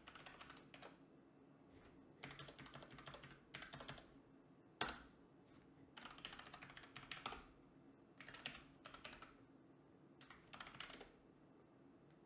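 Faint typing on a computer keyboard: about six short runs of keystrokes separated by pauses, with one sharper single key press about five seconds in.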